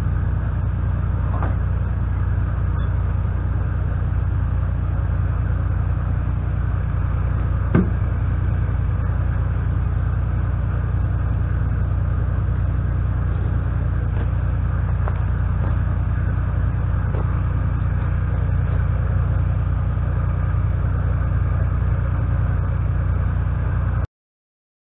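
New Holland LX665 skid steer loader's engine running at a steady speed, with a single knock about eight seconds in. The sound cuts out about a second before the end.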